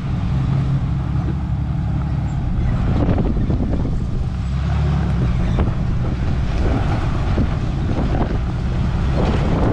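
Vehicle driving, with a steady low engine and road rumble, wind buffeting the microphone, and scattered small knocks and rattles.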